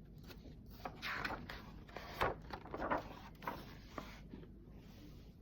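Paper rustling with a few short knocks, about a second in through to about four seconds: the pages of a picture book being handled and turned.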